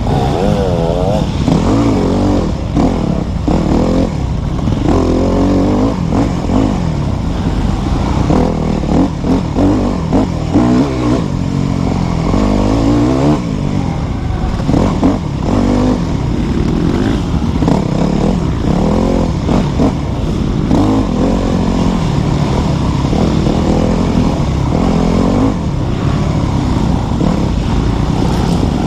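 Yamaha dirt bike engine revving up and down as the rider works the throttle through a tight, twisty trail, with the pitch rising and falling every second or two.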